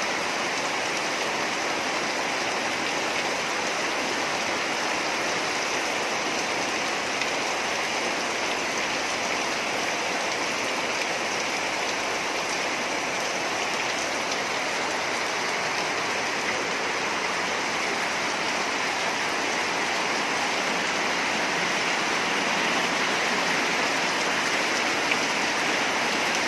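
Steady rain falling, an even hiss with no wind, growing slightly louder in the last few seconds.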